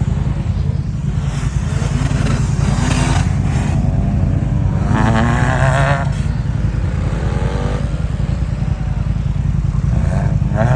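Off-road 4x4 engine running hard, a loud, steady low rumble throughout.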